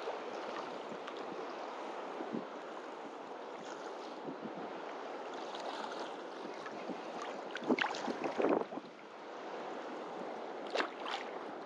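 Steady wind buffeting the microphone over small waves washing on the beach. A few short, louder noises come about two-thirds of the way in, and once more near the end.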